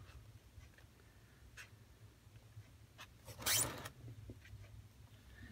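Faint handling sounds at a craft table: a few small ticks, then a brief scraping swish about three and a half seconds in as the altered book is slid round on the cutting mat.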